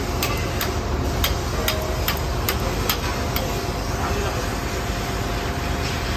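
Steady low machinery drone of the drilling rig running. Over it, for the first half, come sharp metallic clicks about two or three times a second as a chain wrench is worked on the threaded drill-pipe joint; then they stop.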